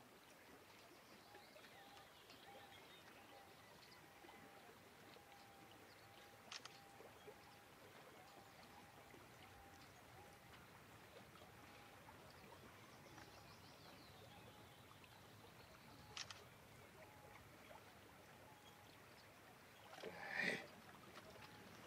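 Near silence: faint steady outdoor ambience by the sea, broken by two small clicks and one short, louder noise near the end.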